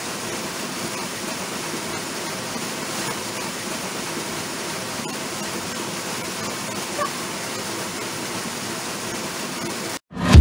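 Steady rush of falling water from a waterfall, which cuts off suddenly about ten seconds in as music with a heavy beat starts.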